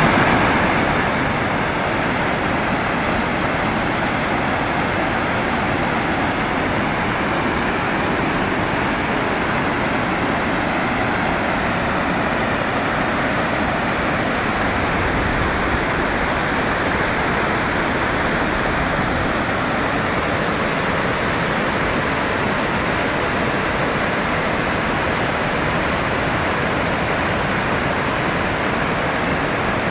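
Ruacana Falls on the Cunene River in full flow: a loud, steady rush of falling water, a little louder in the first second.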